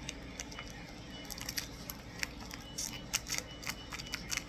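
Foil Pokémon booster pack wrapper being handled and torn open, a quick run of sharp crinkles and crackles that starts about a second in and thickens toward the end.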